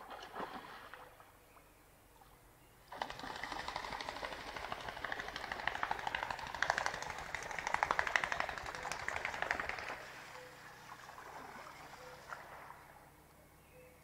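Black-throated loon flapping and pattering across the water surface: a fast, even run of wingbeats and splashes that starts suddenly about three seconds in, grows louder, then fades away.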